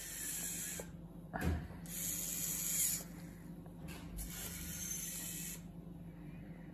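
Small steering servo on a homemade RC tractor whirring in about three short runs as it swings the front wheels left and right, over a steady low hum.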